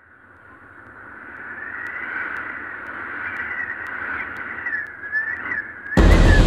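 Opening of a promo soundtrack: a high, wavering whistling tone with a faint hiss under it fades in from silence and swells. Loud drum-led music comes in about six seconds in.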